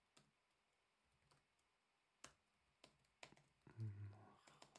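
Computer keyboard keys being typed in short, irregular clicks while a terminal command is entered. A brief low hum comes a little under four seconds in.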